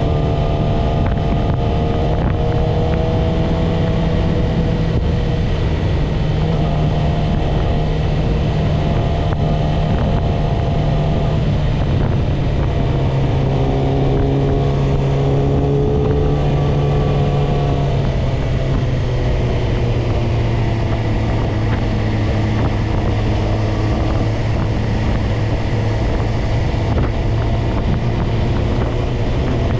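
Yamaha YZF-R6 inline-four engine running steadily at cruising revs, its pitch wavering gently and settling somewhat lower past the middle, with wind noise on the microphone.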